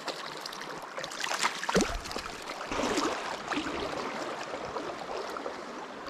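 Shallow creek riffle flowing, a steady rushing of water, with a few brief louder swishes between about one and four seconds in.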